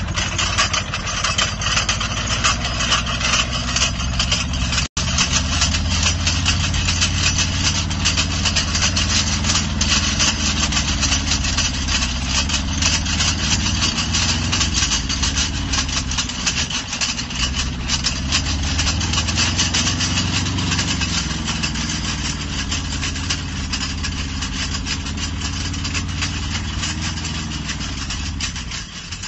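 Quad bike (ATV) engine running at low, steady speed while towing a frame that pays out two rolls of barbed wire, its pitch wavering slightly, with a dense high hiss over it. The sound drops out for an instant about five seconds in and grows fainter near the end as the quad pulls away.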